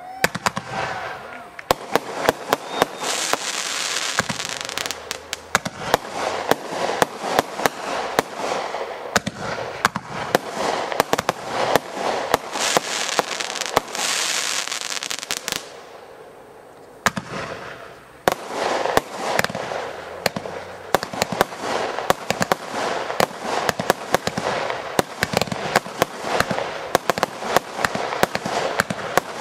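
Fireworks display: a rapid, dense barrage of sharp bangs, with spells of heavy hissing crackle. It thins out briefly about two-thirds of the way through, then the bangs start again.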